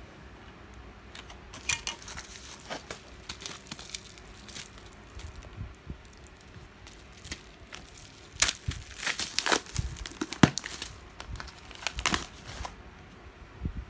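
Plastic bubble-wrap bag crinkling and crackling in the hands as it is opened and handled, in irregular bursts, loudest about eight to eleven seconds in.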